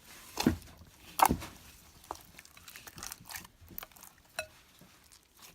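Jelly-like, over-activated slime being poked and pulled inside its plastic jar, giving two louder sticky pops early on and then scattered small clicks and ticks. The slime barely stretches.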